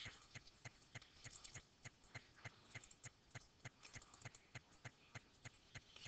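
Near silence with faint, evenly spaced ticks, about three a second.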